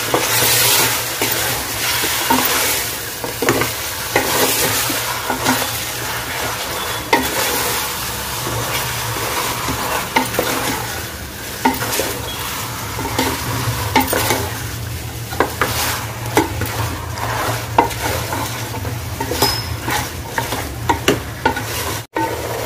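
Mutton chops sizzling as they fry in hot oil in a metal pot, turned with a wooden spatula that scrapes and knocks against the pot over and over.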